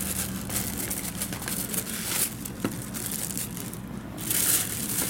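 Clear plastic wrapping and tissue paper crinkling and rustling as they are handled, in uneven bursts, loudest about four seconds in.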